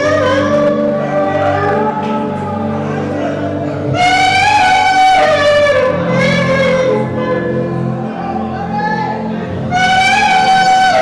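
Live gospel music: a voice singing long held notes that slide between pitches, rising in strong phrases about 4 s in and again near the end, over steady sustained low chords.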